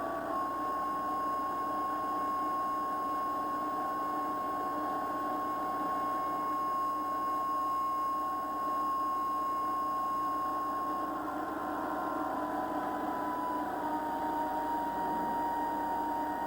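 Steady mechanical hum and noise with a high whine that steps down slightly in pitch a few times in the second half.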